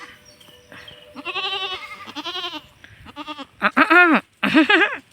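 Goats bleating: about five separate wavering calls, the two loudest close together near the end.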